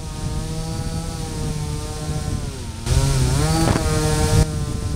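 Electric brushless motor and propeller of an RC plane whining in flight. Its pitch sags a little past the middle as the throttle eases, then comes back up, wavering, under a rush of wind noise for about a second and a half.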